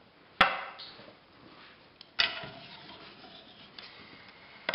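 Two sharp clacks about two seconds apart, each with a short rattle after, as a push reel mower's wheel pinion gear and its small parts are taken off the axle and set down on a workbench, with light clicks of handling between.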